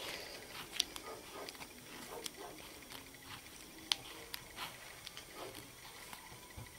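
Faint rustling and scattered small clicks of yarn being wound by hand around a cardboard figure, the sharpest click about four seconds in.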